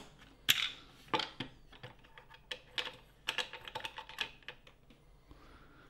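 Light, irregular clicks and taps as the plastic housing and double steel coil spring of a Renault Laguna II accelerator pedal are handled and the spring is pulled out by hand. The sharpest clicks come about half a second and a second and a half in.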